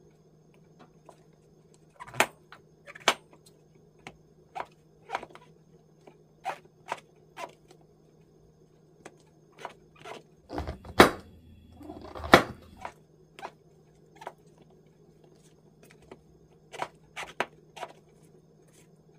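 Chef's knife slicing king oyster mushrooms lengthwise on a plastic cutting board: irregular knocks of the blade meeting the board, with two louder knocks about two-thirds of the way through.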